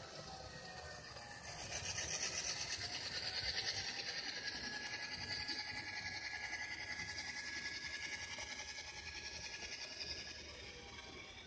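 Bachmann SD9 model locomotive's DCC sound decoder playing a diesel engine sound through its small speaker as the train runs along the track. The sound gets louder about a second and a half in, and a thin steady tone sounds from about four seconds in until near ten seconds.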